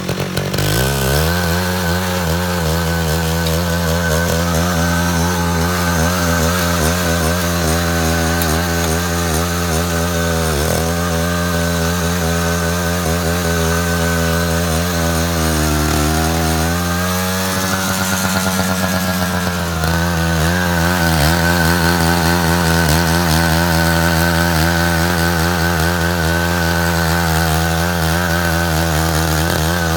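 Walking tractor's engine running steadily under load while it cuts a ditch, its pitch dipping and recovering several times, with a steady high whine over it.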